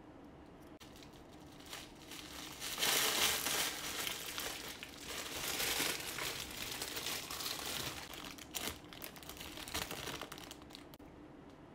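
Plastic wrapper of a chocolate Easter egg crinkling as it is handled and pulled open. The crinkling starts about three seconds in and goes on in louder and softer stretches, dying away near the end.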